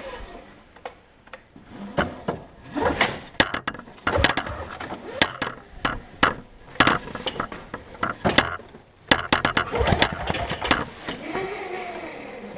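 Toro CCR 2500's 5 hp two-stroke engine being cranked over again and again with its spark plug out and a compression gauge screwed in, a series of uneven strokes and whirs: a compression test, which reads about 40, good for a two-stroke.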